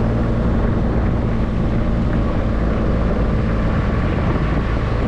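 Excavator diesel engine running steadily under load, a continuous low hum with a dense mechanical wash over it.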